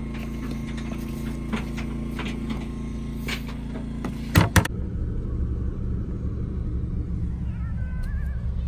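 A steady engine hum with scattered knocks, then two loud sharp bangs about four and a half seconds in. After the bangs the sound changes to a rougher low engine rumble.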